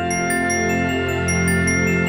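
Instrumental Christmas background music: a sustained low bass under quick repeated high notes.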